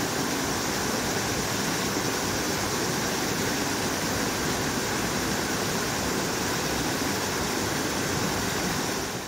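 Mountain stream rushing steadily down a run of small cascades over rocks: a constant, even rush of falling water.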